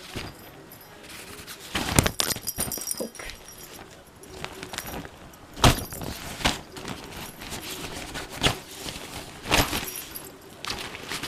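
Ragdoll kitten scrambling in a fabric cat tunnel: irregular bursts of rustling and scuffing with sharp knocks. The loudest bursts come about two seconds in, near the middle and about three-quarters through.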